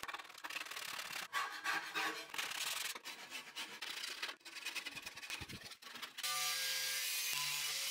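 Sandpaper rubbed by hand in uneven back-and-forth strokes over the old paint and rust of a painted sheet-metal cabinet frame. About six seconds in, a steady, louder sound with a low hum takes over.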